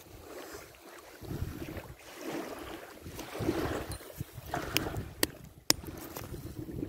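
Wind buffeting the microphone in uneven gusts, with crunching steps and handling on dry gravel and a couple of sharp clicks about five seconds in.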